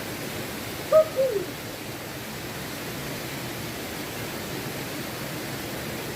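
Waterfall rushing steadily. About a second in, a short two-note call rises above it, with the second note sliding down.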